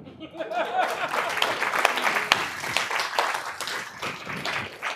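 Audience applause, with a few voices mixed in, greeting a winning auction bid. It swells within the first second and eases off toward the end.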